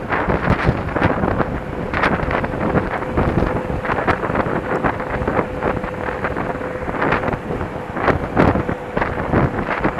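Wind rushing over the microphone of a moving bicycle, with constant crackle and rattle as it rides over a rough, snowy road. A faint steady tone sounds through most of it.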